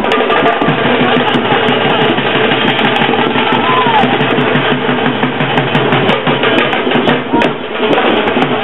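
Drums and band music of an Indian wedding procession, the drums beating a fast, steady rhythm.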